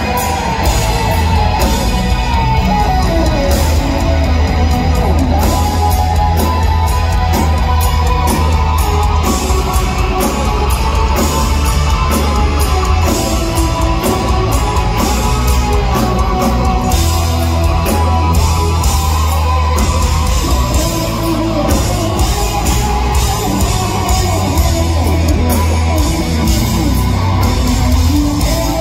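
Live rock band playing loudly through a PA: a lead electric guitar melody full of bends and slides over drums and bass, heard from the crowd.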